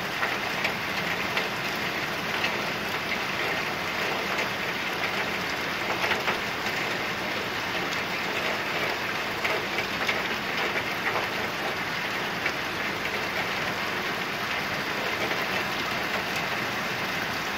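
Steady rain falling, with many single drops ticking close by.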